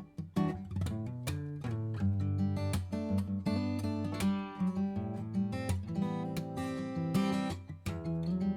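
Background music: acoustic guitar, plucked and strummed, with a bass line.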